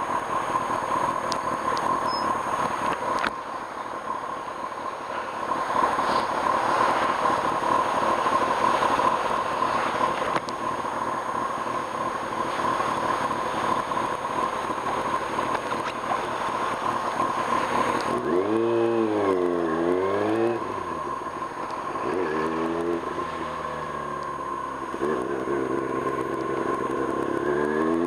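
Kawasaki Ninja ZX-6R inline-four motorcycle riding at speed, its engine mostly buried under steady wind and road noise. About two-thirds of the way in the engine comes through plainly, its pitch dipping and rising, then holding. Near the end it climbs again as the bike accelerates.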